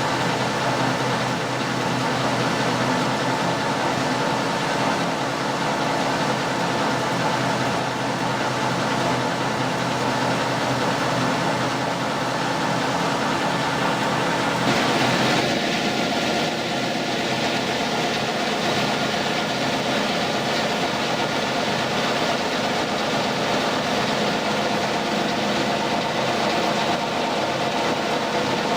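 A Colchester lathe runs steadily while a homemade knurling tool rolls a knurl into a workpiece held in a collet chuck: a steady machine hum with whining gear tones. About halfway through there is a brief louder rasp, and after it the sound holds a new, higher band of tone.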